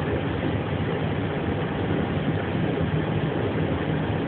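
Steady low rumble with an even hiss inside an Airbus airliner's cockpit during a ground tow, no change in level.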